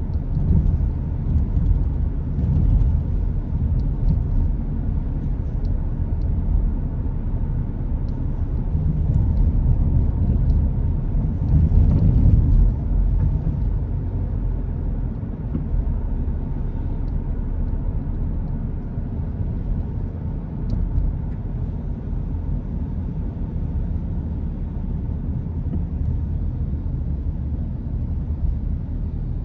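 Car driving on the road: a steady low rumble of engine and tyre noise, swelling briefly about twelve seconds in.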